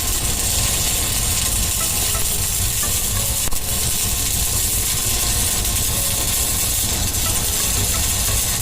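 Stick (SMAW) welding arc burning on thick steel plate with a 4 mm RB-26 electrode: a steady, unbroken hiss.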